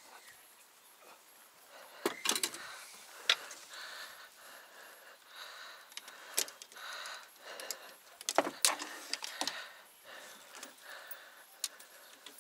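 Fishing rods, reels and tackle clattering against each other and the boat's deck as they are handled and laid down: a scattered run of light knocks and rattles, sharpest about two seconds in and again a little past the middle.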